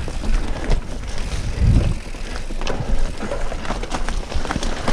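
Vitus Sentier mountain bike ridden down a rough dirt trail: tyres rumbling over the ground while the chain and frame rattle with many sharp clicks and knocks, and a heavier thump a little under two seconds in as the bike hits a bump.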